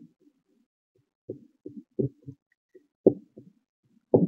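A string of short, dull knocks or thuds, irregularly spaced, loudest about three and four seconds in.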